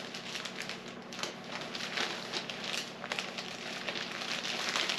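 Tissue paper rustling and crinkling in irregular handfuls as a sweater wrapped in it is folded and pressed flat.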